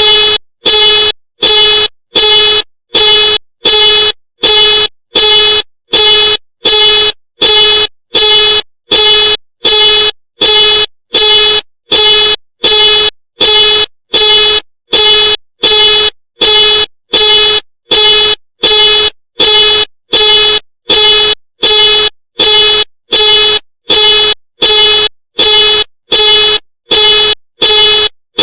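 Ford car alarm sounding the car's horn in loud, evenly spaced, identical blasts, a little more than one a second, over and over without a break.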